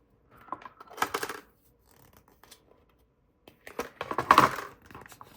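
Small loose metal parts clinking and rattling as they are handled, in two short clusters: one about a second in, the other about four seconds in.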